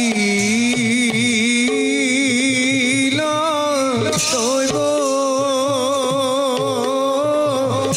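Assamese Bhaona devotional music: voices hold a long, wavering melody over repeated khol drum strokes.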